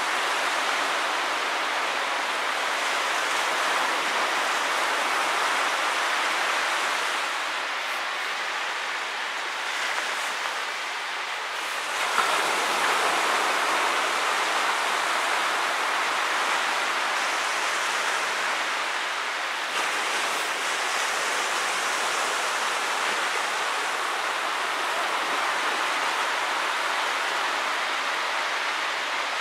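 Small ocean waves breaking and washing up a sandy beach: a steady rush of surf that eases slightly and then swells again about twelve seconds in.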